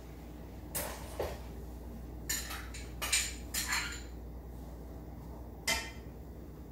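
A utensil clattering and scraping against a skillet in about six short knocks spread over several seconds, as diced onion is added to sweet potatoes in the pan.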